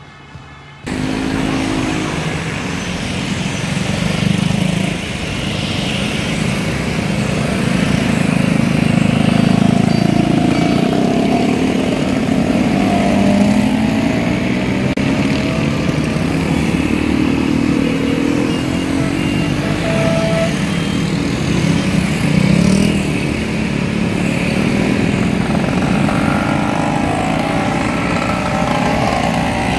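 A column of Vespa scooters riding past one after another, their small engines overlapping and rising and falling in pitch as each one goes by.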